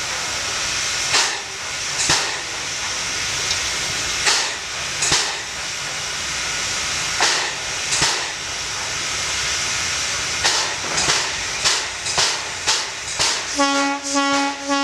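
Soviet LV-class steam locomotive LV-0522 hissing steam, with sharp steam puffs about once a second that come quicker later on. Near the end it starts blowing its whistle, one steady tone held for a couple of seconds.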